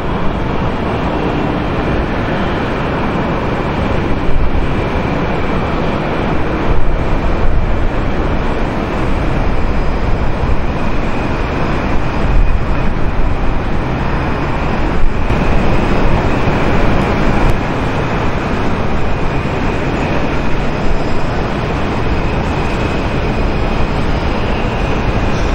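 Steady loud airport roar with a constant high whine, and a few brief swells.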